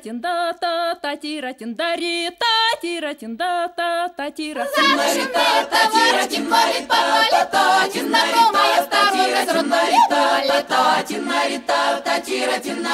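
Background music: unaccompanied singing with vibrato, one thin vocal line at first, then fuller choir-like voices from about five seconds in.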